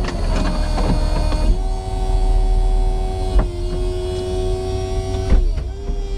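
Chevrolet SSR's power retractable hardtop closing: its electric motors whine steadily in stages, with a shift in pitch about three and a half seconds in and a short dip near the end. The truck's V8 idles underneath as a low steady rumble.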